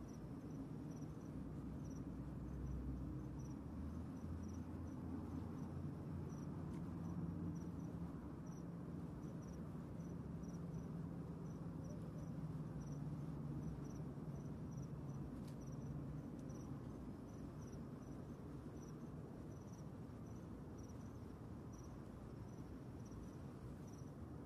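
Crickets chirping steadily, about two to three chirps a second, over a low, steady background rumble.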